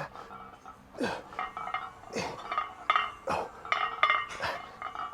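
Iron weight plates on a loaded barbell clinking during a set of bent-over rows, in a rhythm of about one rep a second. Each pull comes with a short grunt that falls in pitch.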